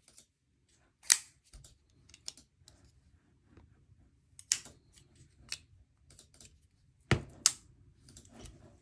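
Scattered sharp clicks and taps of a small precision screwdriver, its bits and a folding knife being handled and set down on a cutting mat. The loudest two come close together about seven seconds in.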